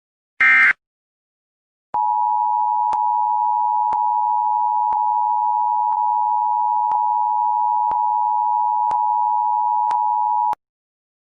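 The last short data burst of an Emergency Alert System header, then about a second later the EAS attention signal: a steady two-tone alert (853 and 960 Hz together) held for about eight and a half seconds and cut off abruptly, with a faint click about once a second.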